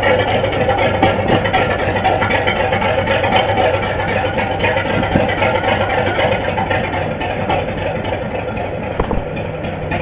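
Diesel engine of a Whitcomb 65-ton diesel-electric locomotive idling steadily.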